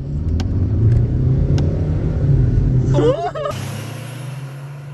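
Car engines revving hard at a drag-race start, heard from inside one of the cars, the engine note climbing in pitch for about three seconds. A brief yelp-like sound comes near the end of that, then the sound cuts abruptly to a quieter, steadier engine noise.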